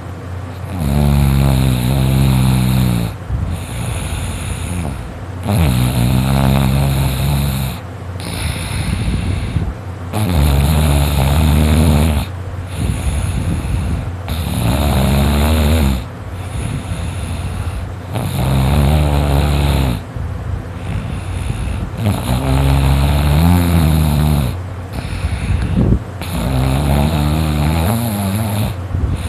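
A sleeping person snoring really loud: about seven long, low snores, one every four seconds or so, with a quieter breath between each.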